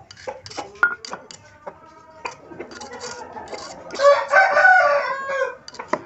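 A rooster crowing once, about four seconds in, for about a second and a half. Scattered light clicks and knocks come before it.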